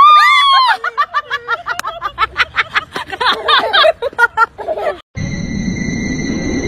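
A loud high cry, then a person laughing in quick bursts for about four seconds. About five seconds in the sound cuts to background music with steady held tones.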